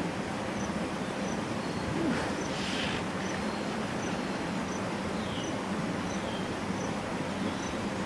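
Outdoor ambience: an insect chirps high and evenly, about three chirps every two seconds, over a steady rushing background. A few short, faint falling calls come through in the middle.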